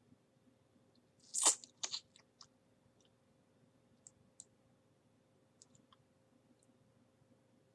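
Computer mouse clicking, several short single clicks spread over a few seconds. About a second and a half in there is a brief louder noise, with a smaller one just after it.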